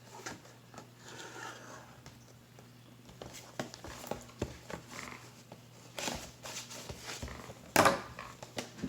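Opening a Bakugan starter pack's plastic and cardboard packaging with a knife: scattered clicks, scrapes and rustles, with a louder knock near the end.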